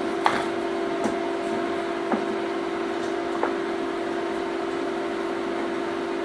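A steady low electrical hum at one pitch, with a few faint clicks and taps from cable being handled, the first four within about three and a half seconds.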